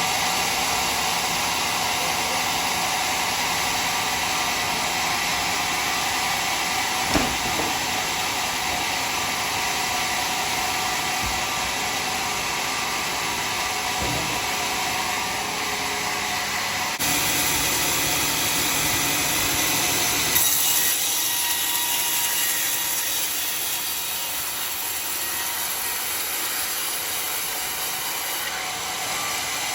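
Sawmill saw cutting through dry, hard acacia wood with a steady, continuous machine noise, with a couple of short knocks and a change in its sound about two-thirds of the way through.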